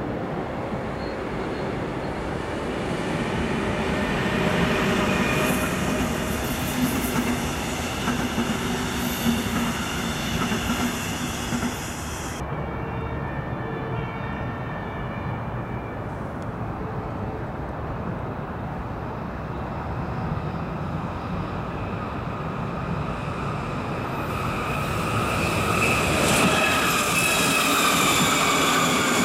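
Hamburg S-Bahn class 474 electric train approaching and passing close, its wheels running on the rails with a rising high whine, loudest near the end. Before a sudden change about twelve seconds in, the steady rumble of a train running.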